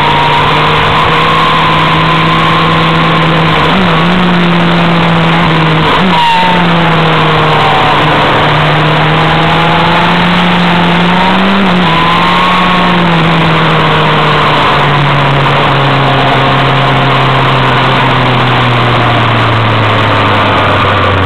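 Motorcycle engine running at speed through mountain bends, its note rising and falling with the throttle, with brief breaks about 4 and 6 seconds in like gear changes, then falling steadily over the last several seconds as it slows. A heavy rush of noise, as from wind, runs under it.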